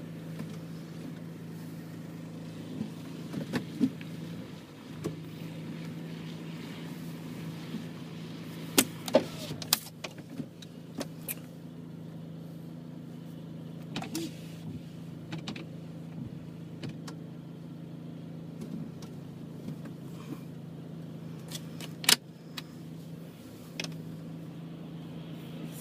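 A steady motor or engine hum with scattered sharp clicks and knocks, the loudest about nine seconds in and again about twenty-two seconds in.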